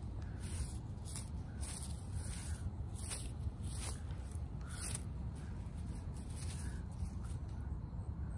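Ragdoll cat biting and chewing grass close to the microphone: a run of crisp snipping crunches, mostly in the first five seconds, over a steady low rumble.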